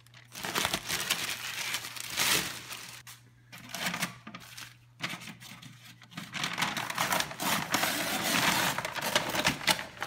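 Plastic sheeting and brown masking paper crinkling and rustling as they are pulled away and crumpled by hand, with brief pauses about three and five seconds in.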